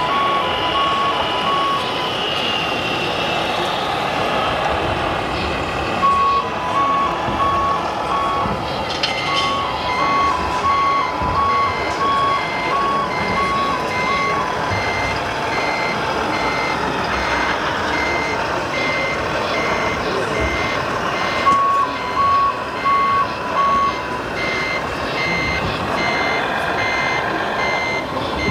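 Electronic sound modules of scale RC fire trucks: a reversing beeper sounding in a regular on-off pattern from about a third of the way in, and several short bursts of a fast two-tone warning warble. Both play over the steady murmur of a crowded hall.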